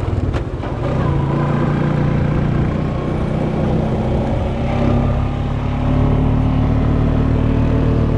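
Quad bike (ATV) engine running steadily as it drives along, with wind rushing over the microphone; the engine note rises a little about five seconds in.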